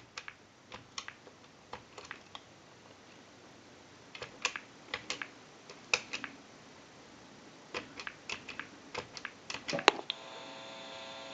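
Irregular sharp clicks of telephone keypad buttons being pressed one at a time as a number is dialled on a Mickey Mouse animated telephone. Near the end a steady hum comes on the line.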